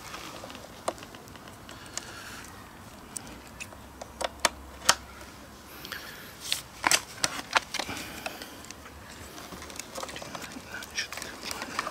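Scattered sharp plastic clicks and taps as hands seat the main power plug and the wiring connector onto an electric motorcycle's battery, the loudest ones clustered around the middle.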